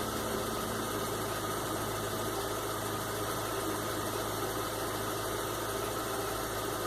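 Chevrolet Onix engine idling steadily after warming up, running smoothly with no misfire to be heard.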